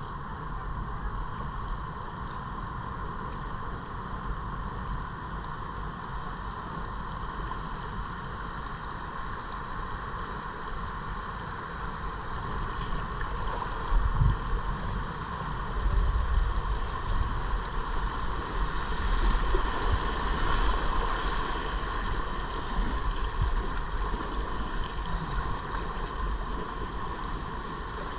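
River water rushing and rippling past a kayak's hull, with low rumble from wind on the microphone growing stronger about halfway through, and a single thump near the middle.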